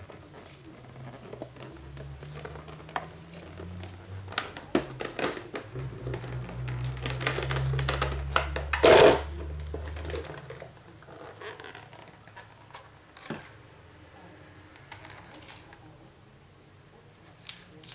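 Clear plastic clamshell packaging handled and pried open: irregular crackles and clicks of the stiff plastic, with the loudest snap about nine seconds in. A low hum runs underneath and stops about ten seconds in.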